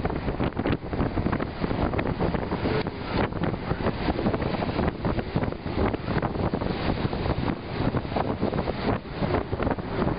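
Strong wind gusting across the microphone, a loud rough rush of noise that swells and dips from moment to moment.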